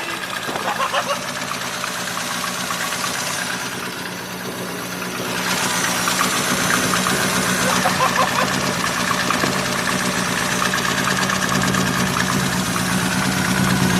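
Toyota Starlet's 4E-FTE turbo four-cylinder engine idling after a rebuild, with a fast light tapping through the run. It is the slight piston slap the owners hear while the engine is still cold, with no bearing knock.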